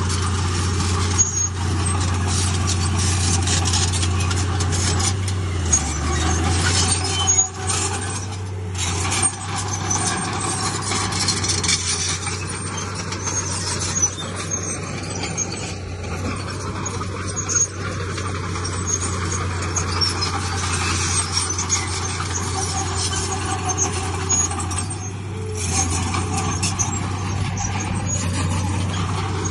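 Heavy diesel earthmoving machinery, a bulldozer and dump trucks, running as a steady low drone, with scattered knocks and clanks.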